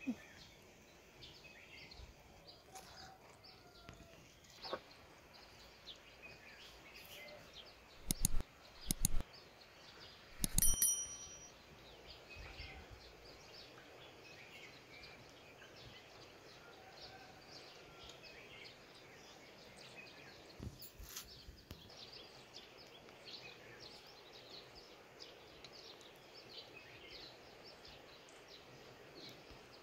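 Quiet outdoor ambience with faint birds chirping on and off. A few sharp knocks come about eight seconds in, then a short ringing clink about ten and a half seconds in.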